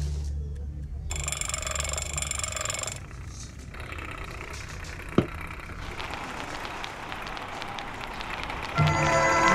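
A brief high, ringing tone, then the crackle and hiss of a gramophone needle riding a spinning record, with one sharp click in the middle. Near the end the music on the record starts to play through the horn.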